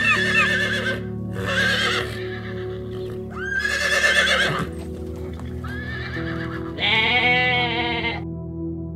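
A horse whinnying twice, then a goat bleating once near the end, over steady background music. Short gull calls tail off in the first second.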